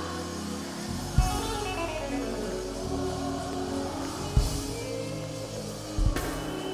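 Gospel worship band music playing under a pause in the singing: sustained bass and chord notes, with three heavy drum hits spaced a couple of seconds apart.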